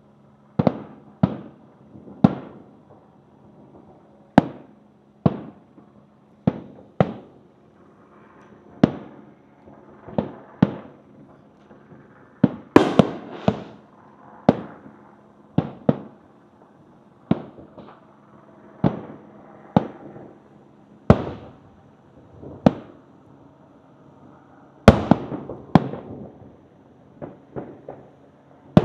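Fireworks display: aerial shells bursting one after another, sharp bangs with echoing tails about every second. They come thickest about halfway through and again near the end, over a faint steady hum.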